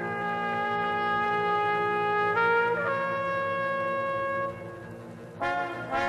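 Background music: a brass instrument playing slow, long held notes that change pitch every second or two, dipping quieter about five seconds in before new notes begin.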